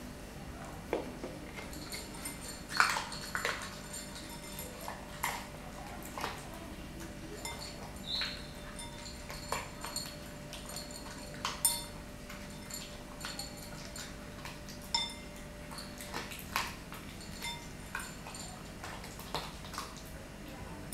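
Small dog eating from a bowl: irregular clicks and clinks of food and teeth against the bowl.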